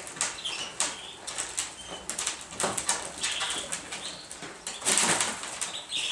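Pigeons flapping their wings and shuffling, with a run of clicks and rustles and a few brief high chirps; the loudest flurry of wings comes about five seconds in.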